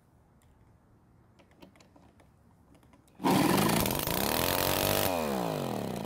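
Redmax EBZ8500 backpack blower's two-stroke engine firing up about three seconds in, after a few faint clicks, and revving up loud. This is the first start after a long no-start, following a reset of the ignition coil's air gap. About two seconds later it stops, its pitch falling as it winds down.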